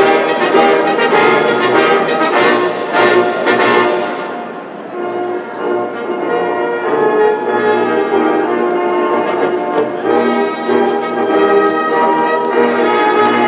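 Brass ensemble playing held chords, with trombone- and trumpet-like tones. The playing thins and quietens briefly about four seconds in, then builds again.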